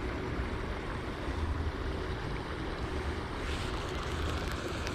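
Wind rumbling on the microphone over a steady outdoor hiss, with a few faint ticks near the end.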